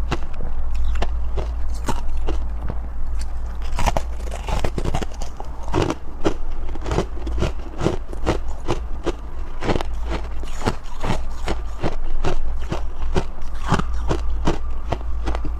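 Close-miked biting and chewing of freezer frost ice: a dense, irregular run of crisp crunches, two or three a second, over a steady low hum.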